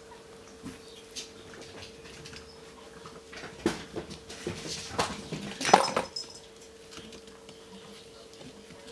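A Bengal kitten bats, pounces on and mouths a small sparkly toy ball on a hard floor. The sound is a scatter of light taps, clicks and scuffles, busiest and loudest about four to six seconds in.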